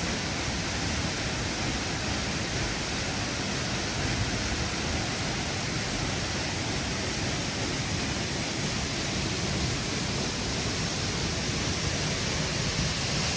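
Steady rushing of a waterfall, an even, unbroken noise.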